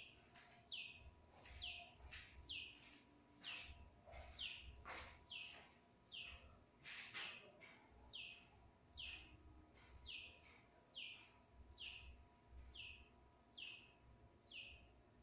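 A bird repeating a short, high call that falls in pitch, about once a second, faint in the background.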